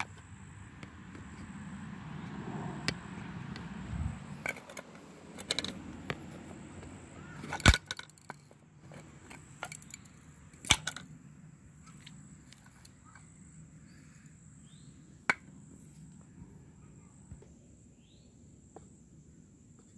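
Handling noise from a plastic bug-viewer container as its magnifying lid is worked off. Rustling builds over the first few seconds, then come a series of sharp plastic clicks and knocks, the loudest about eight seconds in and another about eleven seconds in, fewer after that.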